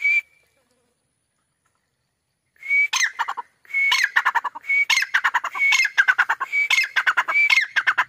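White francolin (teetar) calling: a short note at the start, then from about two and a half seconds in a loud call repeated roughly once a second, each phrase a clear high whistled note followed by a quick tumbling run of falling notes.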